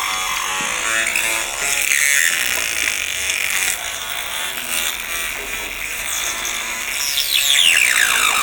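Electronic music with repeated falling pitch sweeps, densest near the end.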